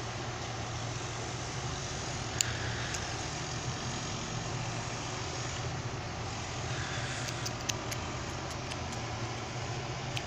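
Steady low motor hum in the background, with a sharp click a couple of seconds in and a few lighter clicks later on: small bonsai trimmers snipping elm shoots.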